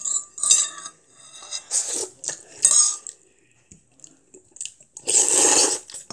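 A metal spoon scraping and clinking against a ceramic bowl as sauce-coated instant noodles are stirred and scooped, in short bursts, with a longer, louder burst near the end.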